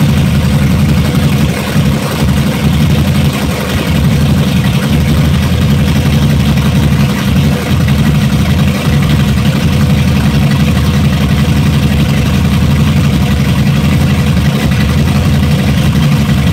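Twin Mercury 300X V6 two-stroke outboards, built to 3.2 litres, running steadily at low speed in gear, their propellers churning the test-tank water.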